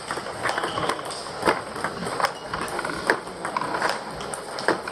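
A rapid, irregular series of sharp knocks and clicks, several a second, with a few louder ones.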